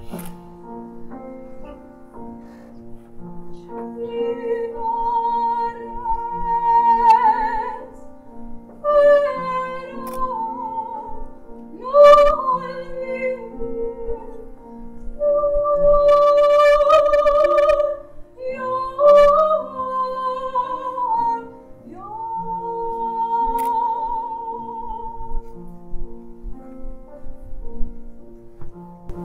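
Female soloist singing a slow melody with vibrato in separate phrases, over sustained low chords that change every second or two. The voice enters about four seconds in.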